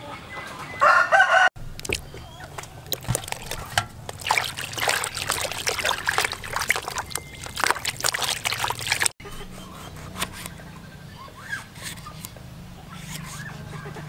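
A rooster crows briefly about a second in. Then a hand swishes mushrooms around in a basin of water, splashing, and near the end come faint knocks of a knife slicing tomatoes on a wooden chopping board.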